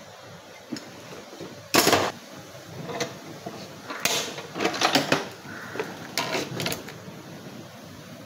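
Metal hand tools clanking and clicking against a Hyundai i20 steering rack held in a bench vise. There is one loud clatter about two seconds in, then two further runs of clicks and knocks near the middle and towards the end.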